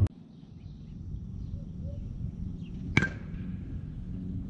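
A bat hitting a pitched baseball once, a sharp crack about three seconds in with a brief ring after it, over a low rumble of wind on the microphone.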